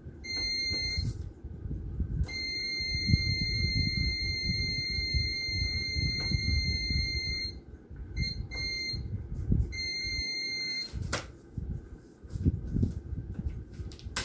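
Continuity beeper of a meter sounding in several steady high-pitched stretches, the longest about five seconds, then a few short ones, as it is held across the old power switch: the beep means the switch is conducting. Low handling rumble throughout and a sharp click about eleven seconds in.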